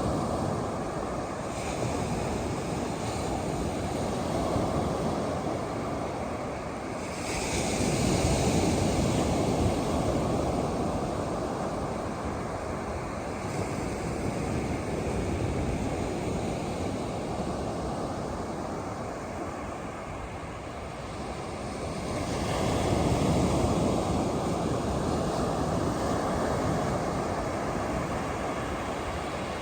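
Ocean surf breaking on a beach: a steady wash of waves that swells louder twice, about a quarter of the way in and again about three quarters through.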